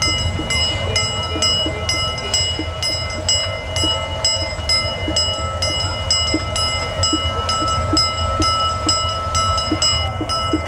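A bell ringing steadily, struck about twice a second, over a low rumble from the small steam train.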